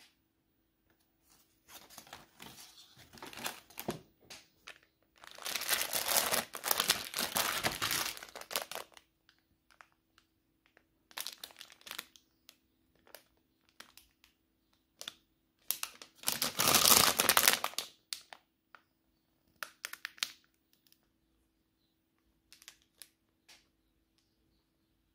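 Crinkling and crumpling, as of packaging being handled, in irregular bursts with two longer, louder stretches, the first about four seconds long, plus a few shorter rustles.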